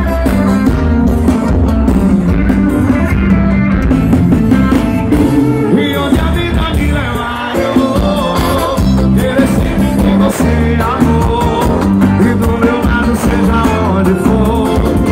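Live forró band playing loudly over a PA system, heavy bass, with singing.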